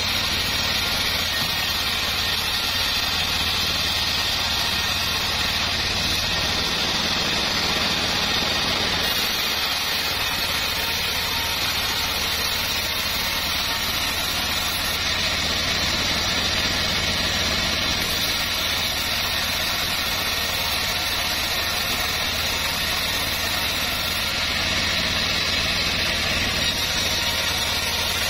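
Homemade band sawmill running steadily while a board is fed through its blade and ripped lengthwise, a continuous mechanical hum and saw noise.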